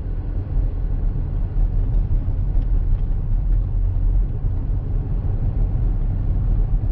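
Steady low rumble of a car being driven: engine and road noise heard from inside the cabin.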